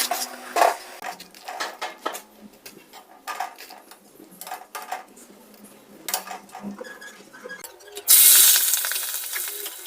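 Kitchen utensils clinking and knocking against cookware, then about 8 seconds in a sudden loud sizzle of food hitting hot oil that slowly dies down.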